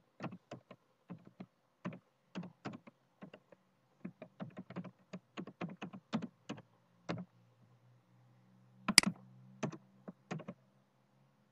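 Typing on a computer keyboard: quick, irregular keystrokes for about seven seconds, then a short pause and a few sharper, louder clicks near the end.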